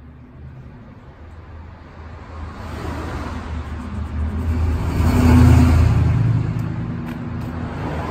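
A road vehicle's engine passing by, growing louder to a peak about five and a half seconds in and then fading away.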